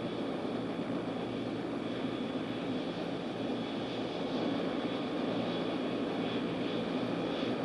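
Bell OH-58 helicopter's Allison T63 turboshaft engine idling, heard from the cockpit: a steady high whine over a low drone, held at ground idle during the shutdown cool-down.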